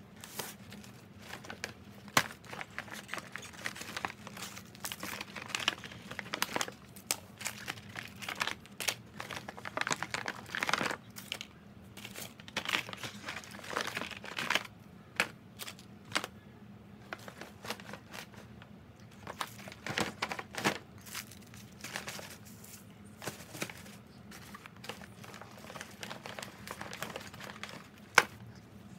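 Paper gift bags rustling and crinkling as things are pulled out of them and handled, with scattered sharp clicks and a few louder knocks, one about two seconds in and one near the end.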